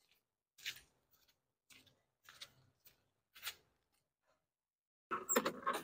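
Faint scuffs and rustles, a few soft ones about a second apart, then a louder burst near the end.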